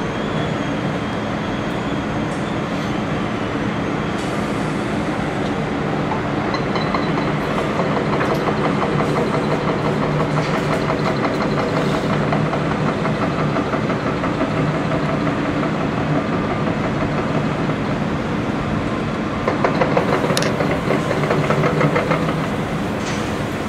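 Hydraulic hammer on a Komatsu PC300 excavator pounding with a fast, even rattle of blows over the excavator's running diesel engine, louder for a few seconds near the end.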